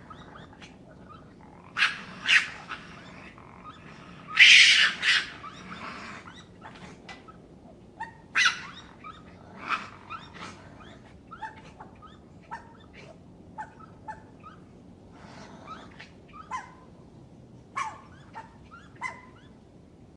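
Raccoon chittering: a string of short, high calls at irregular intervals, the loudest cluster about four to five seconds in, over a faint steady background hiss.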